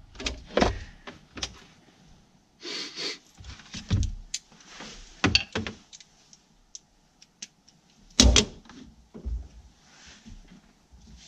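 Handling noise as a cordless drill is set down on the floor and a perforated metal parcel tray is lifted and fitted up under the dashboard: a scattered string of clicks, clunks and short scraping rattles, with one louder thump about eight seconds in.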